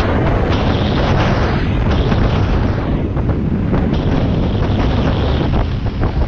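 Heavy wind buffeting on the microphone over a steady rush of water from a barefoot water skier's feet planing across the surface at speed behind a tow boat.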